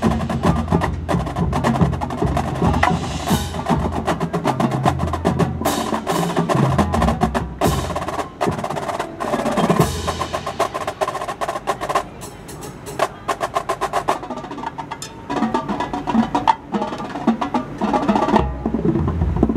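College marching band percussion feature: the drumline's snares, tenors and bass drums play rapid rolls and sharp rhythmic hits, with front-ensemble mallet percussion. About twelve seconds in, the playing thins to sparse, separate strokes, then fuller sound comes back.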